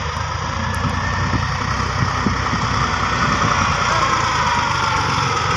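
Heavy machine's engine running steadily, with a faint whine that slowly falls in pitch through the middle.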